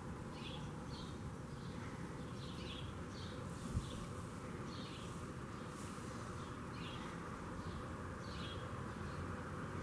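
Outdoor background noise with a short high chirp repeating roughly once a second, and a single dull thump about four seconds in.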